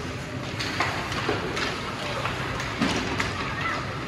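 Ice hockey game play on the rink: irregular sharp clacks of sticks, puck and boards, one to three a second, over a steady noisy background, with faint voices.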